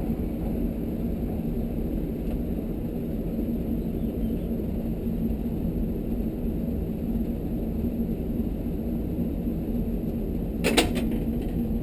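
Steady low background hum, with one sharp click near the end as a part is handled during disassembly.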